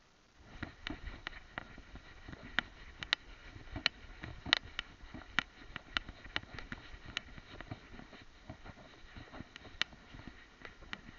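Handling noise from a camera strapped to a dog's head as the dog moves: irregular rustling with sharp clicks and knocks, several a second, starting about half a second in.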